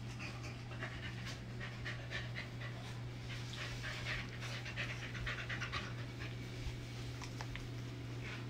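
Two Pembroke Welsh corgi puppies play-fighting, with quick panting and many short rasping and scuffling sounds on a blanket. A steady low hum runs underneath.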